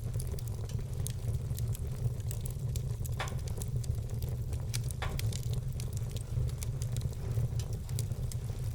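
Burning wood logs crackling, with many small sharp pops and two louder ones a little after three seconds and about five seconds in, over a steady low rumble.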